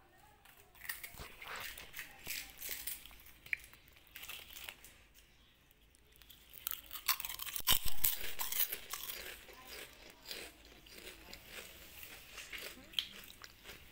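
Cats chewing pieces of a crunchy snack, in two spells of crackly crunching with a pause between, loudest a little past halfway.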